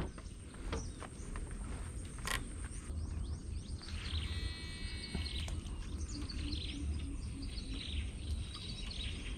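Swamp-forest ambience: birds chirping and calling, with a quick run of repeated notes about halfway through. There is a low rumble underneath and a few sharp knocks early on.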